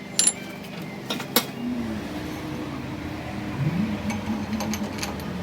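A few sharp metallic clicks, then a machine starts running with a steady low hum, its pitch rising briefly near the middle.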